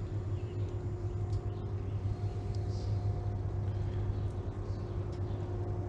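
A steady low mechanical hum with a held tone, like an engine running at idle. A fainter second tone joins about two seconds in.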